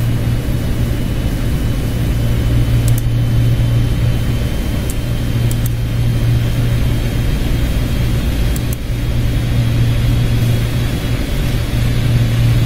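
Steady low hum with an even hiss, the constant background noise of the recording, with a few faint clicks scattered through it.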